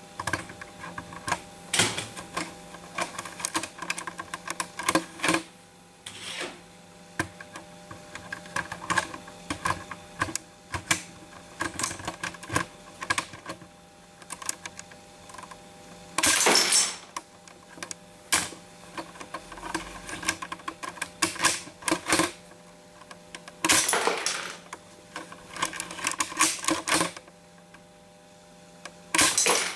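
Hard plastic Lego parts clicking and rattling irregularly as they are handled, with three short louder rattling bursts, the last near the end.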